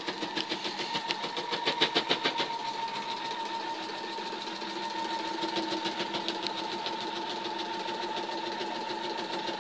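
Electric sewing machine running, stitching through a layered quilt: a steady motor hum with a rapid ticking of needle strokes, busiest in the first couple of seconds.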